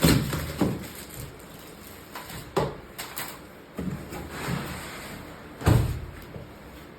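Several irregular knocks and thumps, the loudest at the start and about six seconds in, with quieter handling noise between them.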